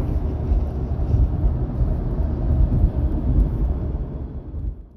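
A vehicle's low, uneven rumble that cuts off suddenly at the end.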